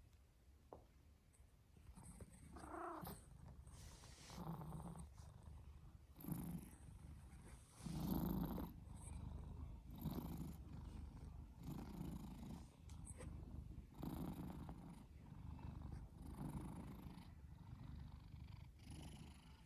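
A pet cat snoring, a faint snore with each breath, about one every two seconds.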